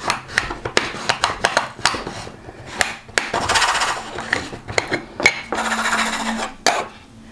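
Black resin diamond-painting drills rattling and clicking inside a small mill, worked to break apart drills that stick together. A run of sharp separate clicks, then two spells of dense rattling about a second long each.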